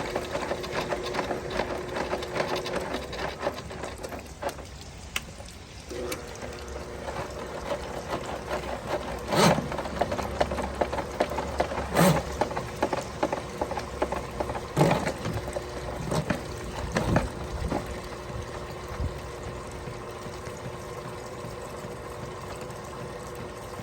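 Electric drain-cleaning machine (sewer snake) running as its cable is fed into a clogged sewer line: a steady motor hum that stops for about a second and a half around five seconds in and then starts again, with several sharp knocks in the middle of the stretch.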